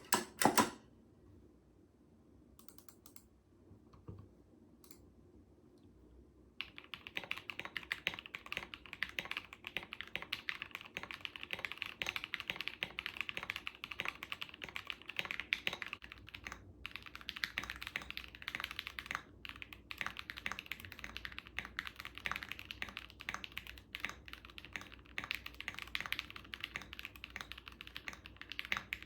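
Typing on a KBD67 Lite R3 mechanical keyboard with a polycarbonate plate, lubed Everglide Tourmaline V2.5 linear switches and XDA keycaps: a fast, continuous patter of keystrokes. After a few clicks, there are several near-quiet seconds before steady typing starts about six seconds in. The first part is typed without a bottom silicone pad in the case. After a brief break about halfway, the typing continues with the pad fitted.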